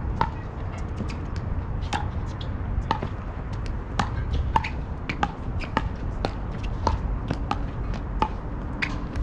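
Pickleball paddles striking the hollow plastic ball, a sharp pock roughly once a second at uneven intervals, over steady low background noise.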